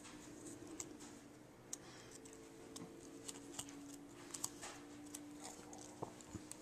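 Paper flower petals bent and handled by fingers, giving faint scattered clicks and light crinkles over a faint steady hum.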